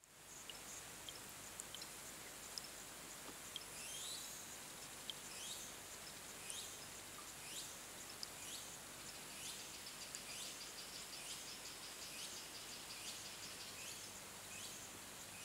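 Quiet outdoor ambience over a still river: a steady low hiss, with a short high call repeating about once a second and a few brief high chirps.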